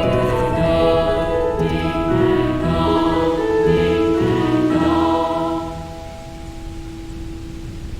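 Slow, choir-like music with sustained stacked chords changing about once a second, thinning near the end to one held low note.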